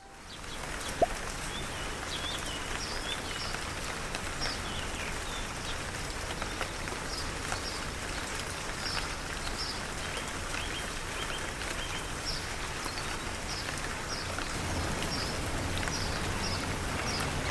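Steady rain falling, with a bird giving short, repeated chirps throughout. There is a single sharp tap about a second in.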